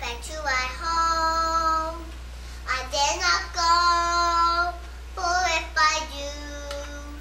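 A child singing a song, holding long steady notes one after another with short sliding phrases between them.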